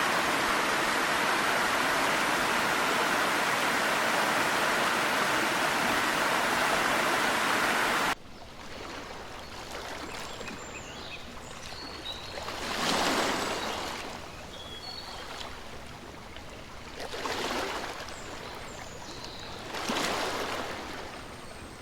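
Waterfall: the steady, loud rush of falling water, cut off suddenly about eight seconds in. Then a quieter rush of flowing water that swells and fades three times, with faint high chirps.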